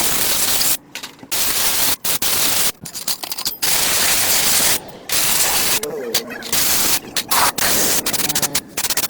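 Loud hissing noise that cuts off and restarts abruptly several times.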